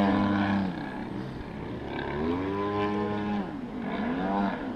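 Engines of giant-scale Extra 330SC radio-controlled aerobatic planes flying overhead, the engine note rising and falling in pitch as they manoeuvre. It is loud at first, drops away about a second in, and swells again with a rising then falling pitch from about two seconds in.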